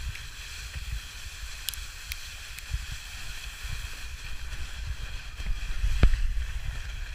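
Toboggan sliding fast over packed snow: a steady scraping hiss, with wind rumbling on the camera microphone. A sharp knock about six seconds in as the sled jolts.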